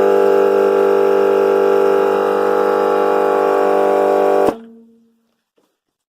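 Portable twin-cylinder air compressor running steadily as it inflates a tyre, with an even hum of pitched tones; it is switched off and stops abruptly about four and a half seconds in.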